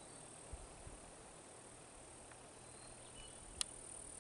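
Faint outdoor quiet: a steady high hiss, two soft low thumps under a second in, and one sharp click near the end.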